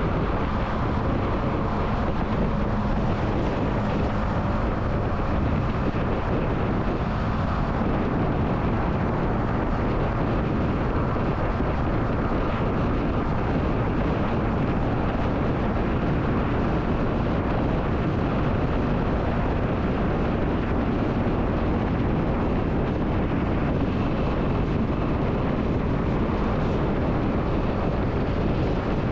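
Yamaha motorcycle cruising at expressway speed, its engine and tyre noise under steady wind rushing over the action camera's microphone.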